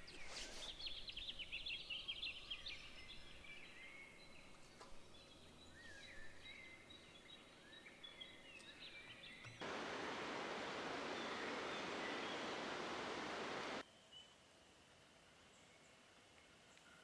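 Wild birds calling, with many short chirps and trills over the first half. About ten seconds in, a loud steady rushing noise cuts in abruptly, lasts about four seconds and cuts off just as suddenly.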